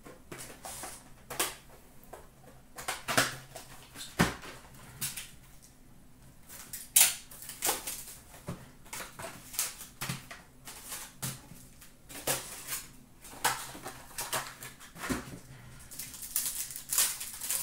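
Hockey trading cards being handled, a string of light clicks and slaps as cards are flicked through and set down, then a foil pack wrapper crinkling as it is torn open near the end.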